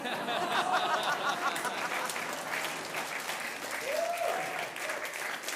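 Studio audience applauding and laughing after a punchline, with one voice calling out briefly about four seconds in.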